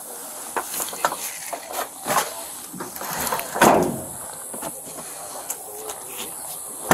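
Handling noise: scattered clicks and knocks, with a louder thump about three and a half seconds in and another at the very end.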